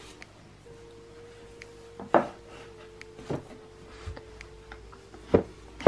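Books and small objects set down and pushed into place on a wooden bookshelf: several sharp wooden knocks about a second apart, the loudest about two seconds in.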